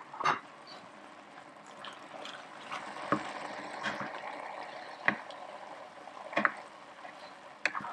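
Wooden spoon stirring thick, creamy artichoke risotto in a pan, a soft wet sound broken by about six short clicks. This is the parmesan being stirred in to finish the risotto (mantecatura).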